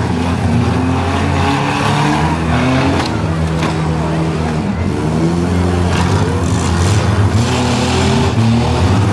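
Several compact four- and six-cylinder car engines revving and running at once, their pitches rising and falling, with a few sharp bangs of cars colliding.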